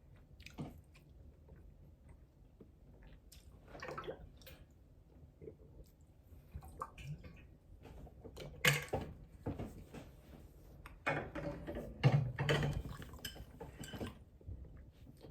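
Close-up eating sounds: cutlery and dishes being handled, with mouth noises of eating, coming in irregular bursts that are loudest in the second half.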